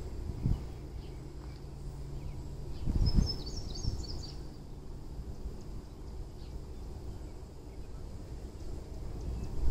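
Outdoor park ambience with a low wind rumble on the microphone. A brief burst of high bird chirps comes about three seconds in, and a low steady hum runs through the first few seconds.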